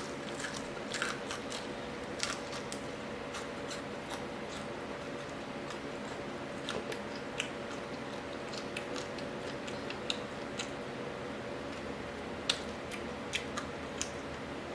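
Close-up biting and chewing of crispy fried crappie fish, with sharp crunches of the fried crust scattered through, over a steady low hum.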